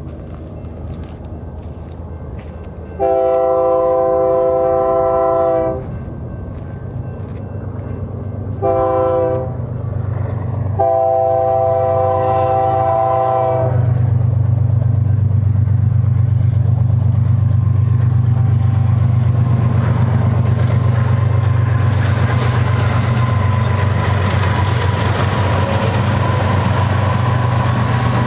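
Multi-chime air horn of a BNSF freight train's lead diesel locomotive sounding the grade-crossing signal: a long blast, a short one, then a long one that ends about halfway through. The locomotives' diesel engines then pass close with a steady low rumble, and wheel-on-rail noise rises as the cars begin to roll by.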